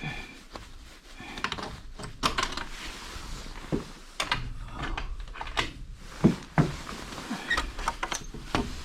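A gate being opened: a string of scattered knocks, rattles and scrapes.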